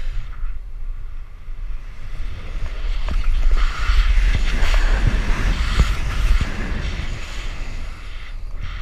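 Wind buffeting a GoPro's microphone as a bungee jumper swings and bounces upside down on the cord, a rumbling rush that swells in the middle and eases near the end.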